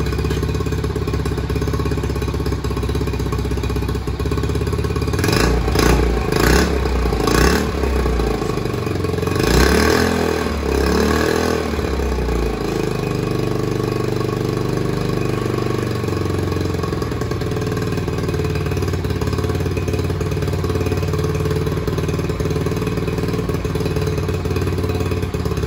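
1972 Honda CT70's small single-cylinder four-stroke engine idling, blipped three times in quick succession about five seconds in, then revved up once a little longer before settling back to a steady idle.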